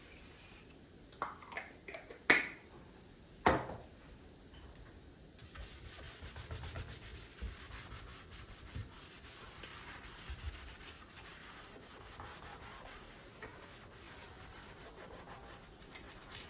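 A few sharp knocks of things handled and set down in the first few seconds, then a long stretch of faint rubbing and wiping on a surface during cleaning.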